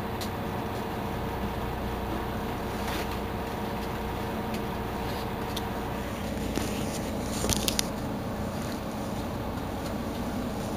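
Mercedes-Benz Citaro C2 city bus standing with its engine idling steadily. A few brief sharp clicks come about seven and a half seconds in.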